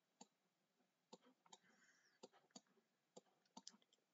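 Faint, irregular clicking of a computer mouse button, about a dozen clicks, as short brush strokes are drawn in a paint program.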